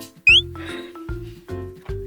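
Background music with a steady bass beat and sustained notes. About a quarter second in comes a short, high, rising squeak, the loudest sound here.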